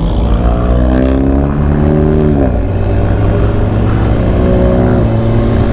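Motorcycle engine accelerating under way, rising in pitch, then dropping at a gear change about two and a half seconds in and running steadier, with wind rush over it.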